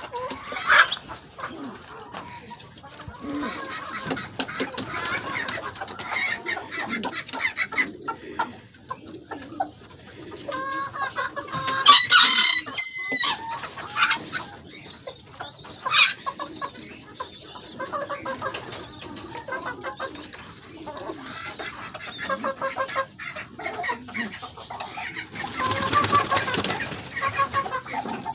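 Chickens clucking steadily among a feeding backyard flock, with a louder fowl call about halfway through and a burst of rushing noise near the end.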